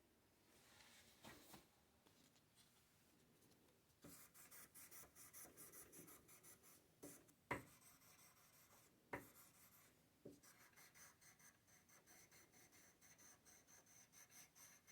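Faint rubbing strokes of sandpaper worked by hand along a steel knife blade, with three light clicks in the middle.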